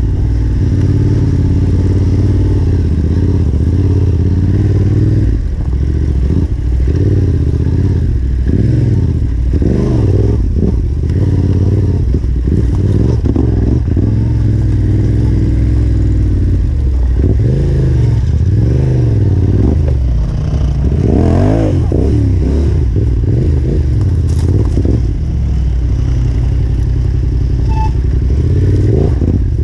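Yamaha Ténéré 700's parallel-twin engine revving up and down as the bike is ridden on a rough dirt trail, with the bike rattling and clattering over the ground.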